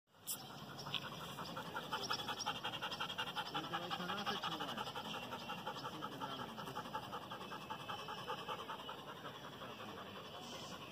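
Dog panting quickly in an even rhythm, growing fainter in the last couple of seconds.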